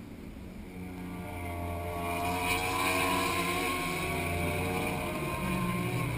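A pack of racing superbikes at high revs, the sound of several engines growing louder as the bikes approach.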